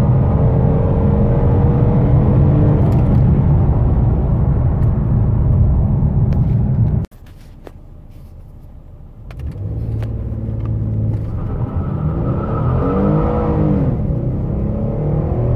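Ford Taurus 3.5-litre V6 pulling hard under acceleration at highway speed, heard from inside the cabin, its pitch slowly climbing. About seven seconds in it cuts off abruptly to a much quieter idle. Then the engine revs up again as the car sets off from a standstill, its pitch rising and then dropping at a gear change near the end.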